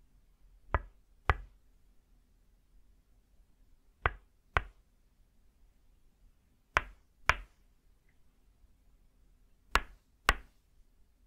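Tok sen wooden mallet striking a wooden peg pressed against the shoulder: crisp wooden knocks in pairs, two hits about half a second apart, four pairs about three seconds apart.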